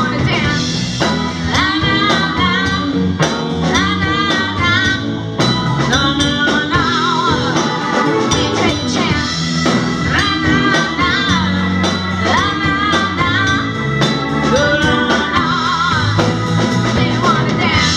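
Live band playing a song, with singing and guitar over a steady drum beat.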